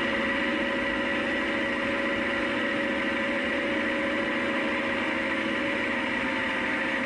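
Tractor engine running steadily, an even drone that holds without change.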